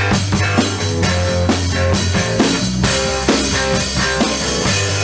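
Rock music with a drum kit keeping a steady beat over bass and guitar.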